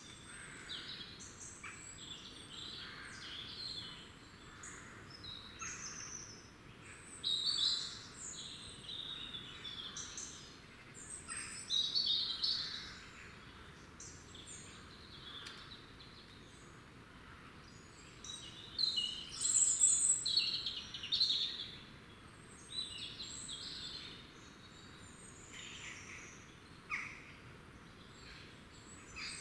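Small woodland songbirds chirping and singing, with many short high calls and song phrases overlapping throughout and a few louder bursts.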